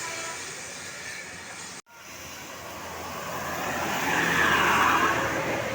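A road vehicle passing on a rain-wet road: a hiss of tyres on wet tarmac swells to its loudest about four to five seconds in, then eases. The sound drops out for an instant about two seconds in.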